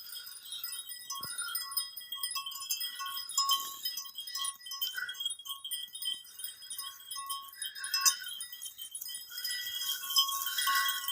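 Flock of sheep, with bleats now and then over a constant tinkling of many bells.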